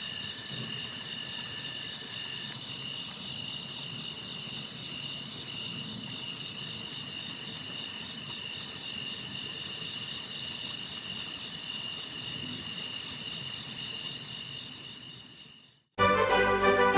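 A steady chorus of insects, crickets or the like, shrilling in several high continuous notes with one note pulsing regularly. It fades out about a second before the end, and instrumental music starts abruptly.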